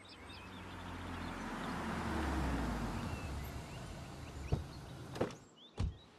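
Cars rolling up a wet driveway and coming to a stop: engine and tyre noise swells and then fades. Near the end come a few sharp clicks as a car door is unlatched and opened.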